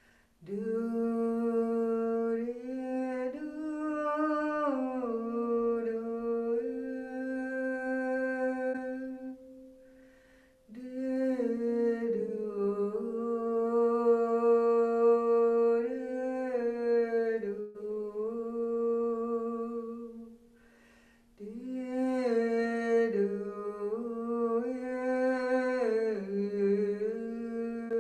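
A woman's voice humming or toning wordlessly in slow, held notes that glide from pitch to pitch. It comes in three long phrases of about ten seconds each, with a short pause between them.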